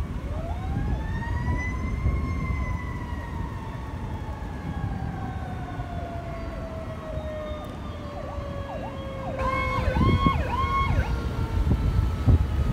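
Fire brush truck's siren rising to a wail and then slowly winding down over several seconds, followed by four quick siren whoops about ten seconds in.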